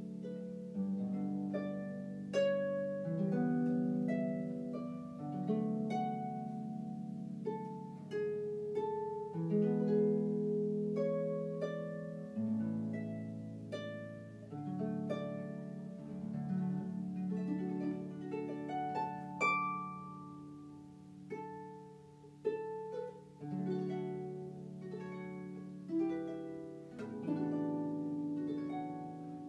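Background instrumental music: a steady run of plucked notes that ring and fade over held low notes.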